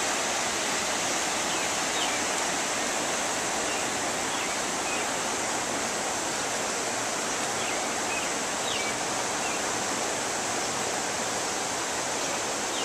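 Fast-moving floodwater rushing steadily, a continuous even hiss of churning water.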